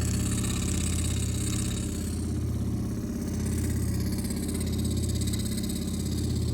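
An engine or motor running steadily at an even low pitch with a fast, regular pulse, rising and falling slightly in loudness.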